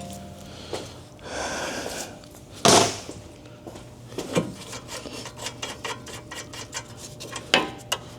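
A hammer striking the steering knuckle to knock the outer tie rod end's tapered stud loose: three sharp metal blows, the middle one lighter, with rubbing and light clicking between them.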